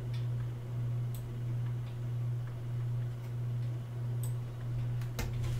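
A few scattered computer mouse and keyboard clicks, with a close pair near the end, over a steady low hum.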